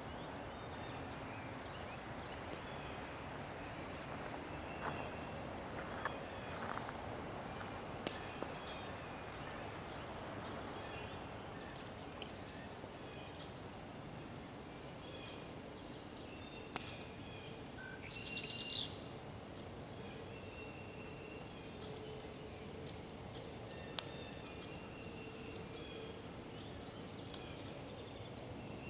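Wild birds chirping and calling on and off over a steady hiss of outdoor background, with a few sharp clicks or pops scattered through, the sharpest about two-thirds of the way in.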